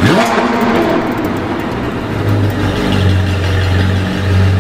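Sports car engine revving with a sharp rise in pitch at the start, then settling into a steady low engine drone.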